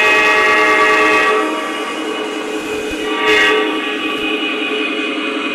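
Train horn sounding as a train runs: a loud, sustained chord that eases a little after a second or so and swells briefly about three seconds in.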